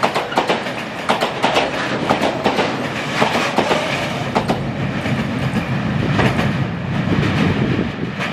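Freight train of covered hopper wagons rolling past close by, the wheels giving a quick clickety-clack over the rail joints. After about five seconds the clicks thin out and a lower rumble takes over as the end of the train moves away.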